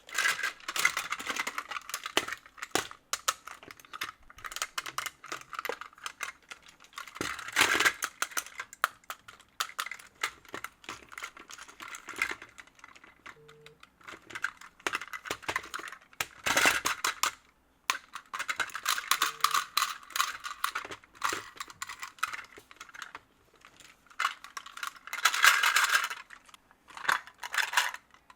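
Plastic Plarail toy-train pieces being handled: irregular clicking and clattering, with a few louder rattling bursts near 8, 17 and 26 seconds in.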